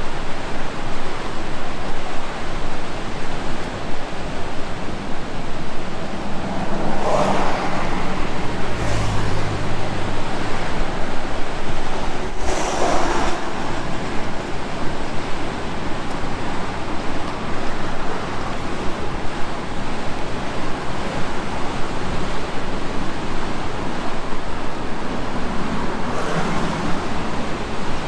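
Steady rush of fast-flowing water, a river or waterfall, with a few brief extra swells and knocks along the way.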